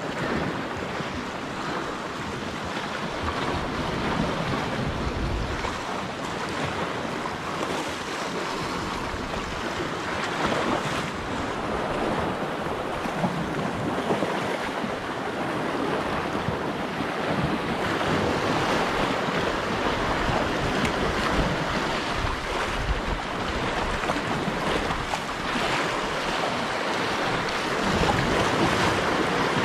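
Sea surf washing and breaking over shoreline rocks in a steady rush, with wind gusting on the microphone.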